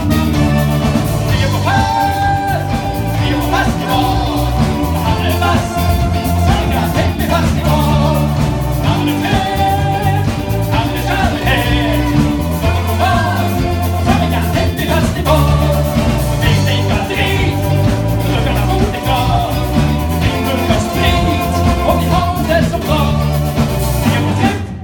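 Live band playing with a singer, over a heavy bass and drum beat; the music cuts off suddenly at the end.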